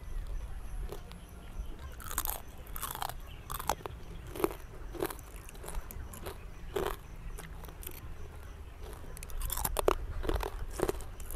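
Crisp fried banana chips being bitten and chewed close to the microphone: a string of sharp, irregular crunches, the densest clusters about two seconds in and again near the end.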